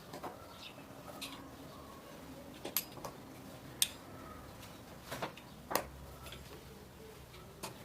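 Scattered light clicks and taps of hands and utensils working at a kitchen counter during food preparation, irregularly spaced, the sharpest a little under four seconds in.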